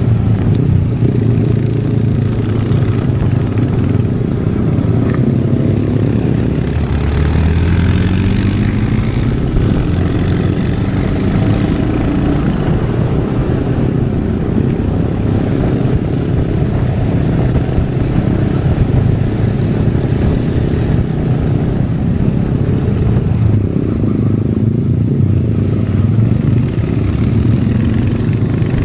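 Royal Enfield Hunter 350's single-cylinder engine and exhaust running under way, revs rising about seven seconds in and then settling back to a steady pull.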